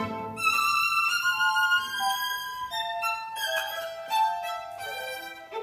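Solo violin playing a line of separate held notes that mostly step downward, with little accompaniment underneath.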